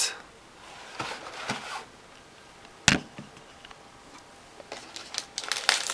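Trading-card foil packs and their cardboard box being handled: a soft rustle about a second in, one sharp knock near the middle, then crinkling of the foil pack wrappers building up near the end.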